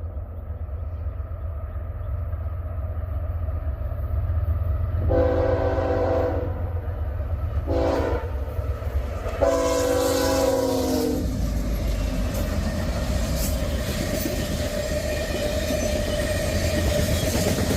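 Diesel freight locomotive air horn sounding a grade-crossing signal over a steady engine rumble: a long blast, a short one and a final long blast. Then the train rolls past with a broad rushing noise and wheels clicking over the rail joints.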